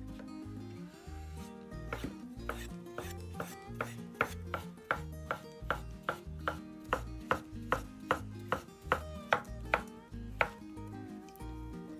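Knife chopping food on a cutting board in a steady rhythm of about two strokes a second, starting a couple of seconds in and stopping near the end.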